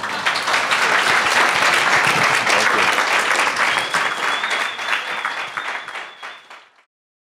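Audience applauding, dying away after about five seconds and cutting off suddenly near the end.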